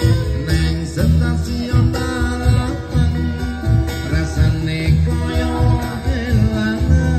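Small live band playing: a hand-drum beat, guitar and bass with a singer, played through a PA speaker.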